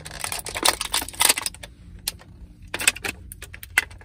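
Thin clear plastic toy wrapper crinkling and crackling in hands as a small figure is worked out of it, in irregular crackles with a short lull midway.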